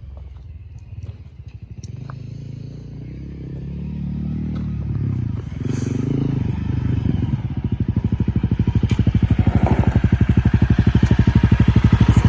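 Dirt bike engine drawing near and then running close by with a fast, even putter that keeps getting louder, after a low rumble; a few light clicks come in the first couple of seconds.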